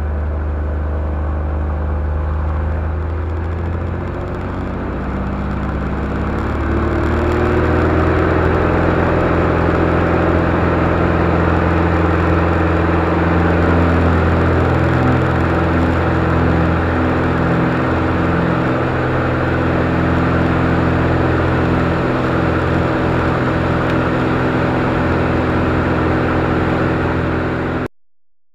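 Beechcraft Bonanza's piston engine and propeller heard from inside the cockpit. It runs steadily at first, then climbs in pitch and loudness about six seconds in as it goes up to takeoff power. It holds a steady full-power run through the takeoff and cuts off suddenly near the end.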